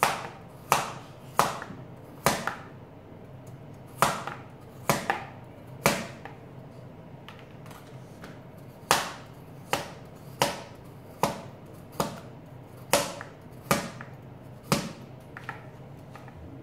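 Kitchen knife slicing peeled raw potato into rounds, each stroke ending in a sharp knock on a plastic cutting board. The knocks come roughly once a second, with a lull of a few seconds in the middle.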